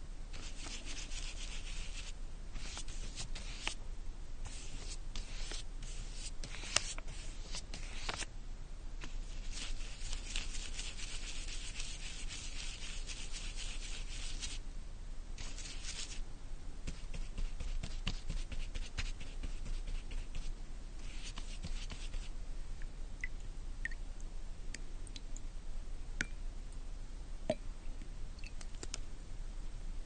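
A wall being painted: repeated rubbing strokes of paint being spread across the surface, some long and some short, with brief pauses between them. The strokes thin out in the second half, leaving a few light clicks.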